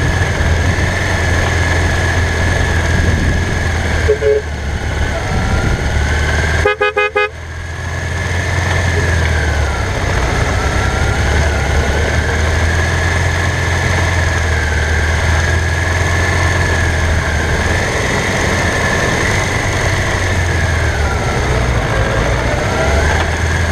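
1985 Honda CBX 750P's inline-four engine running steadily while riding, with wind noise over the microphone. A vehicle horn toots briefly about 4 s in and again, longer, about 7 s in.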